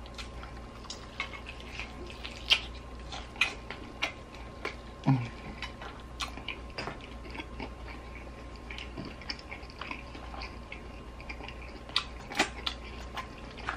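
A person chewing a mouthful of seared steak: scattered wet smacks and clicks of the mouth, with a short hum about five seconds in and a few sharp pops near the end as a finger is licked.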